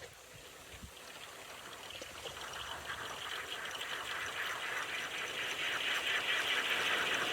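Homebuilt axial-flux wind turbine's blades whooshing in a gust, a rushing sound with a fast pulse that builds steadily louder over several seconds as the rotor spins up.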